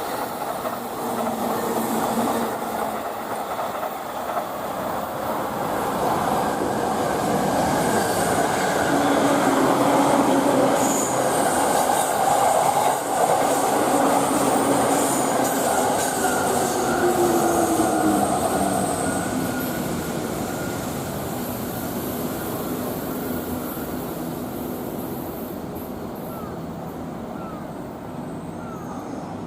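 E231 series electric train running through a station, its rolling and motor noise growing louder to a peak in the middle and then slowly fading as it moves away.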